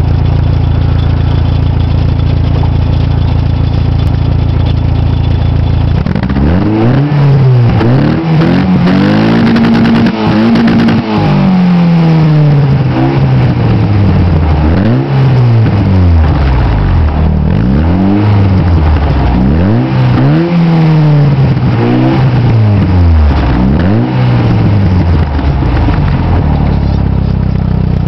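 Fiat Bravo 1.6 16v four-cylinder petrol engine heard through a twin-tip sports exhaust, idling steadily, then blipped from about six seconds in: about ten revs, each rising and falling back, before it settles to idle near the end.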